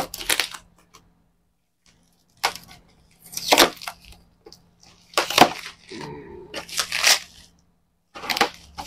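Packaging crackling and crinkling as it is handled and pulled open by hand, in about five short bursts with silent gaps between them.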